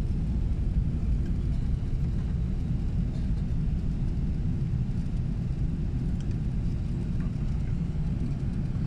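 Steady low rumble inside the cabin of an Airbus A380 taxiing after landing.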